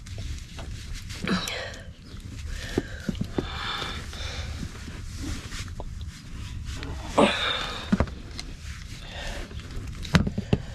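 A person breathing hard with effort while working a hand tool on wiring. Breathy bursts come a few seconds apart, with sharp clicks and knocks from the tool, the loudest about seven seconds in and near the end.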